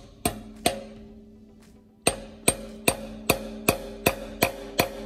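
A hammer tapping a steel locating dowel into the deck of a Chrysler 265 Hemi six's cast-iron block, the metal ringing after each strike. Two taps, a pause of over a second, then a steady run of eight quick taps, about two and a half a second.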